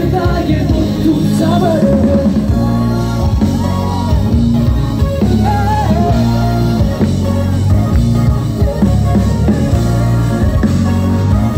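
Live band on stage playing loud amplified music with a singer, heard from within the crowd.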